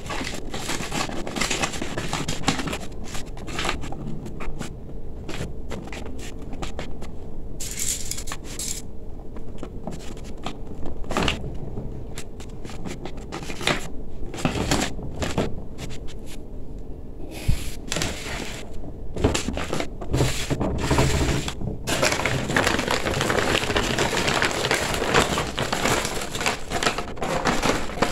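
Stiff, crisp metallic gele fabric crinkling and rustling as hands fold, pleat and tuck it. The crackly rustles come and go with short pauses and get busier in the last few seconds.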